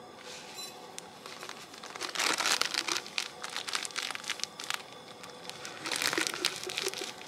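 Crinkling and rustling of a bag being handled, loudest in two bursts, about two seconds in and again about six seconds in.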